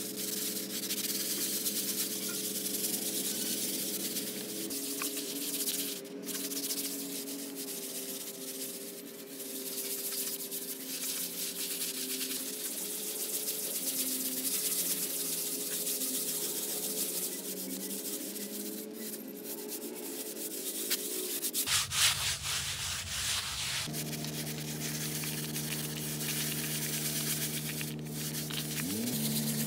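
Sanding: continuous rough rubbing of an abrasive over a surface, with steady low tones underneath that shift pitch a few times and a brief louder burst a little past two-thirds of the way through.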